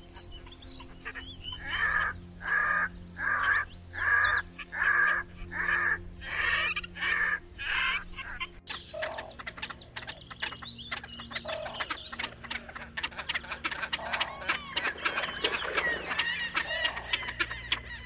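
Red-necked grebe giving a series of about ten loud, harsh calls, evenly spaced. About halfway through it switches to great crested grebe, a fast, dense run of short chattering calls.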